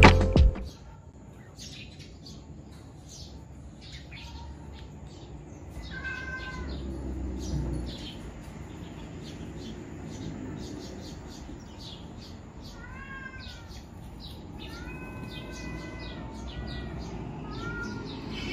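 A cat meowing about six times in short rising-and-falling meows, one about six seconds in and the rest in a cluster over the last few seconds, over quiet room tone.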